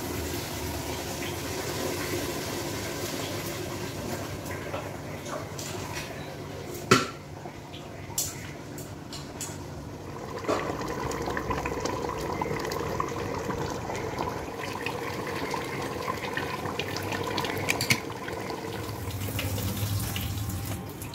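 Chicken and stockfish in their stock being poured from one metal pot into another: a steady splashing pour, with a sharp metal clank about seven seconds in and a few lighter knocks after it.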